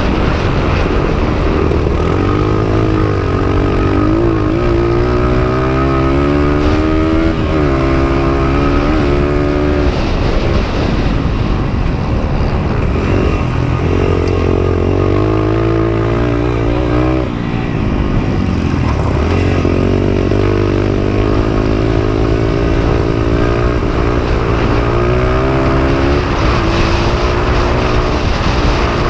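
Honda XR100's small air-cooled single-cylinder four-stroke engine under hard throttle, heard from on board. The pitch climbs and drops back again and again as it pulls through the gears, with a few short dips where the throttle is closed for turns. Wind rush is mixed in with the engine.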